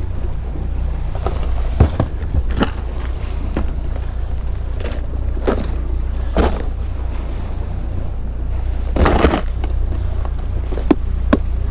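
Clear plastic tackle boxes knocking and clattering as they are handled and lifted out of a boat's deck storage hatch: scattered short knocks, with a denser clatter about nine seconds in, over a steady low rumble.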